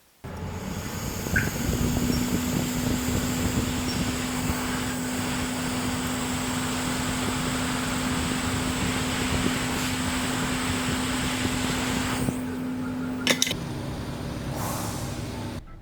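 Small electric blower or fan running with a steady rush of air and a low hum. The hum stops with a click about thirteen seconds in, and the air noise cuts off just before the end.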